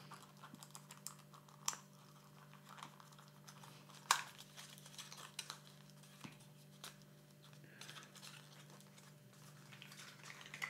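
Small objects handled on a table: scattered light clicks and taps a second or two apart, the loudest about four seconds in, with a little rustling, over a faint steady hum.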